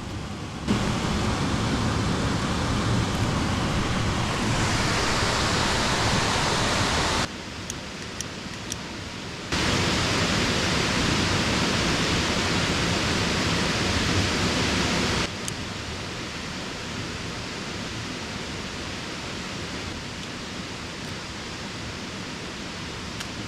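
Steady rushing of creek water. It is louder in two stretches, about a second in and again near ten seconds in, each starting and stopping abruptly, with a quieter steady rush between and after.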